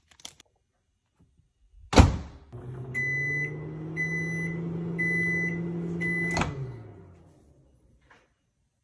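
Samsung over-the-range microwave oven: a sharp clunk about two seconds in as the door shuts, then the oven running with a steady low hum while it beeps four times, about once a second. A second click near the end, after which the hum winds down and stops.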